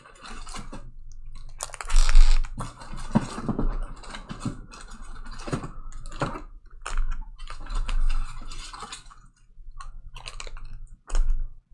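Cellophane-wrapped trading card packs being handled and laid out: irregular crinkling and rustling of the plastic wrappers with small taps and clicks, loudest about two seconds in.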